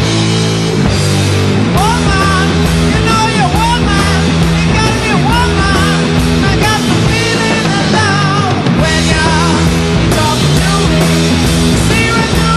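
Loud rock music with a sung vocal over a full band, playing continuously.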